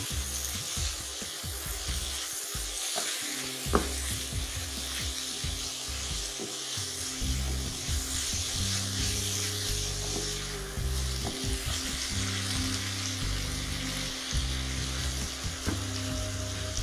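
Chopped spinach sizzling in oil and masala in a pan while a wooden spatula stirs it, with one sharp knock a little under four seconds in. Soft background music runs underneath.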